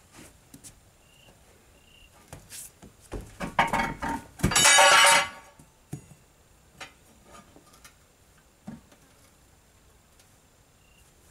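Steel tire irons clanking and scraping against the steel rim of a large tractor tire as the old tire's bead is pried off. Scattered light knocks, then a run of clanks about three to five seconds in, ending in the loudest, a ringing metal clang, with a few light knocks after.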